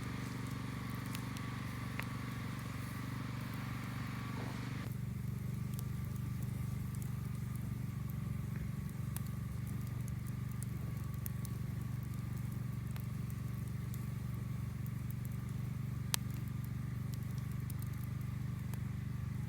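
Campfire crackling, with scattered sharp pops (one louder near the end) over a steady low rumble.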